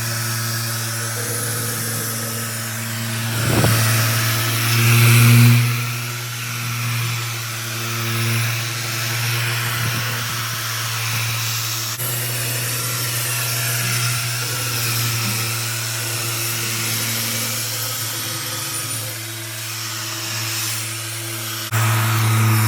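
A power tool running steadily, with a low hum and an abrasive hiss over it. The sound changes abruptly a little before the end.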